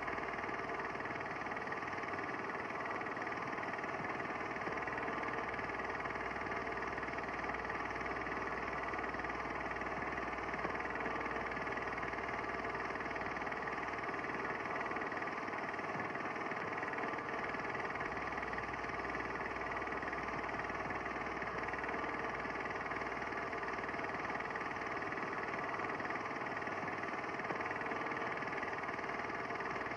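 A steady, unchanging mechanical hum with several constant tones in it.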